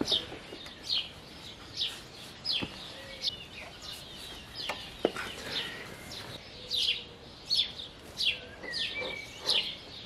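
A bird calling over and over in short, high, falling chirps, roughly one a second, with a couple of faint clicks near the middle.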